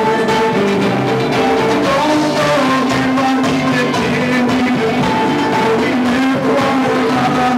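A band playing live: amplified plucked string instruments over drums and cymbals, in a steady rock groove.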